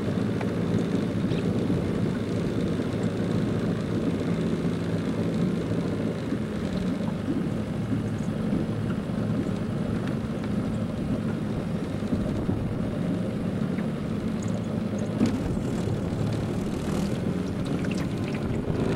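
Outboard motor of a small boat running steadily, an even engine hum with no change in speed.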